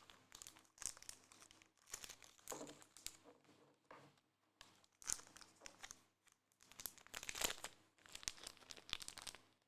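Faint plastic crinkling and rustling in short, scattered bursts as a trading card is handled and tucked into a plastic sleeve.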